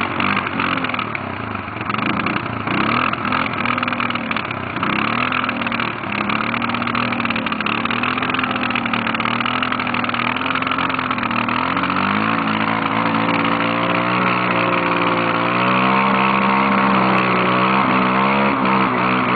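ATV engine revving in repeated swells as the four-wheeler sits bogged down in deep mud. From about twelve seconds in the revs climb and hold high.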